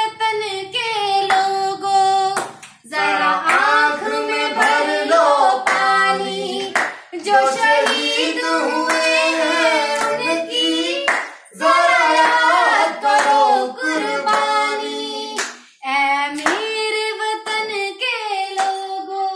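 A woman singing a song solo in a strong, held voice, with sharp percussive beats keeping time.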